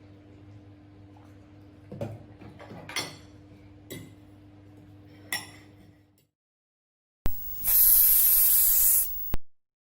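Cutlery clinking on plates a few times over a faint steady hum, then after a second of silence a loud hiss lasting about two seconds that cuts off suddenly.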